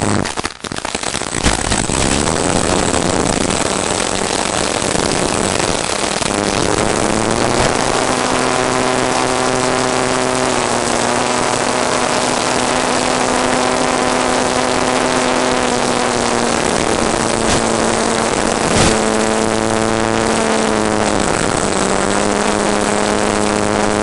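Model aircraft's motor and propeller running in flight, heard over rushing air. Its pitch drops a few times and dips and recovers near the end as the throttle changes.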